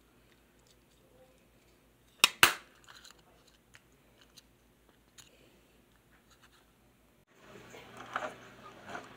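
Two sharp plastic snaps in quick succession about two seconds in, as the hinged lid of a plastic toy pocket watch is clicked shut, followed by faint handling clicks. Near the end, busier clicking and rubbing as a plastic toy compass is handled.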